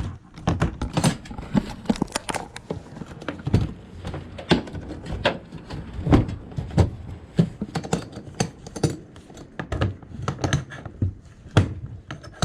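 Irregular knocks, clicks and thunks of small hard objects being handled and packed into a box, with a few louder knocks among them.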